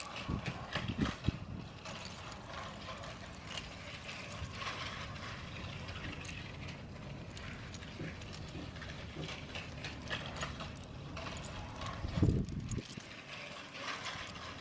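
Continuous light clicking and rattling of LEGO plastic parts, with a few low thumps near the start and again about twelve seconds in.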